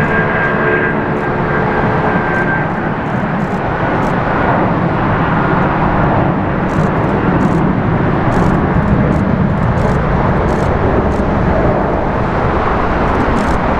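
Boeing 757-200 jet engines at takeoff power through the takeoff roll and lift-off. A high, steady whine fades over the first couple of seconds and leaves a loud, steady rumble.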